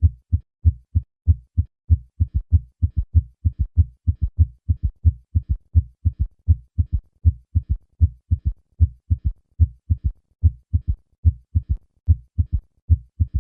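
Heart sounds of a summation gallop: a fast, galloping run of low thuds. As the heart rate slows, the extra sound separates out as a third heart sound (S3) just after the second heart sound, giving a triple rhythm.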